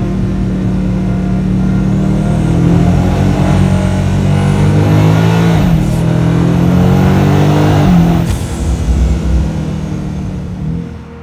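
BMW M5's twin-turbo 4.4-litre V8 pulling hard, its engine note dropping sharply in pitch at each of several gear changes.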